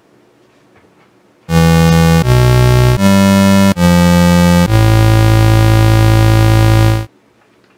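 Homemade software synthesizer, a sawtooth wave an octave below mixed with a sine wave under an attack-decay-sustain-release envelope, playing five sustained notes in a row. The notes change pitch with almost no gap between them and the last is held about two seconds. The tone is rich and textured and stops shortly before the end.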